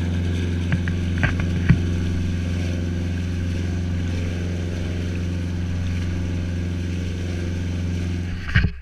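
Fishing boat's engine running at a steady speed, a constant low drone, with a few light knocks in the first couple of seconds; the drone stops abruptly near the end.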